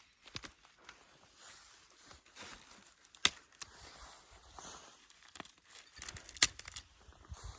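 Leaves and stems rustling and crackling as wild shoots are handled and picked, with two sharp snaps about three seconds and six seconds in.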